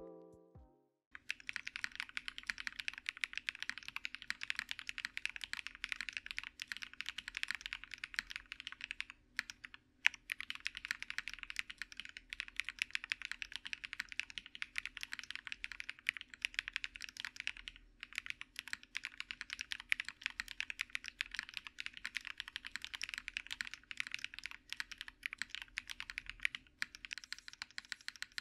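Typing test on a QK80 mechanical keyboard fitted with OWLabs London Fog switches, OWLabs stabilisers, an aluminium plate, plate foam with a PE sheet, and GMK Dandy keycaps: fast, continuous keystrokes. The typing stops briefly twice, about nine and eighteen seconds in.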